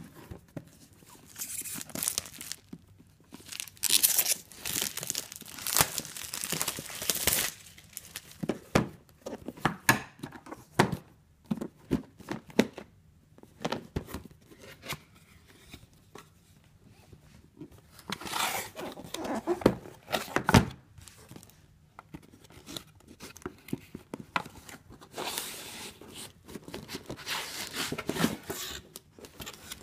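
Packaging of a boxed wireless router being opened and unpacked: bursts of tearing, rustling and crinkling, with a few short knocks as pieces are handled.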